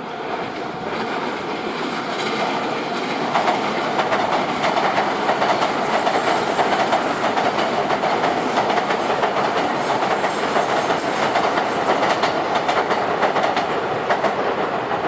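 A train passing close by over a level crossing, its wheels clacking rhythmically over the rail joints. It builds up over the first few seconds and then stays loud.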